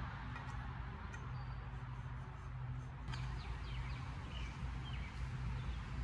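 Outdoor background: a steady low hum under an even haze, with a few faint short high chirps in the second half.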